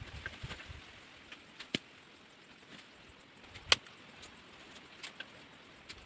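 A few sharp knocks and snaps, the loudest a little past halfway, from wood and tools being handled while a charcoal pit is covered.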